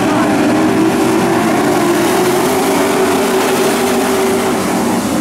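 A pack of dirt-track pro trucks racing, several engines running together at speed in a steady, loud, blended drone.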